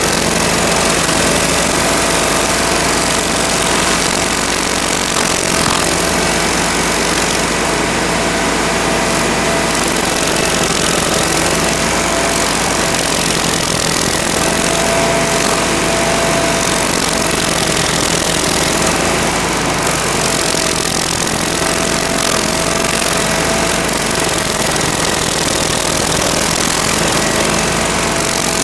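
Toro STX-38 stump grinder running steadily, its spinning toothed cutting wheel grinding into a small tree stump and throwing wood chips. A steady engine note with a faint, slightly wavering whine running through it.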